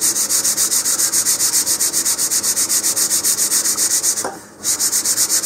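150-grit sandpaper on a sanding block rubbed quickly back and forth across the face of a thin wooden rocket-fin sheet, an even run of scraping strokes with a brief break about four seconds in.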